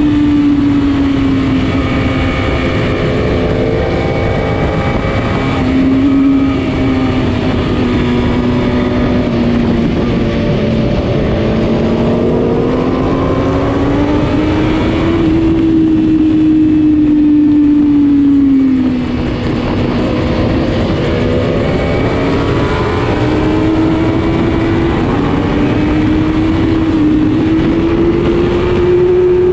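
Motorcycle engine running hard at speed over steady wind rush. Its pitch falls, climbs and falls again several times as the throttle opens and closes, with a brief drop in loudness about two-thirds of the way through.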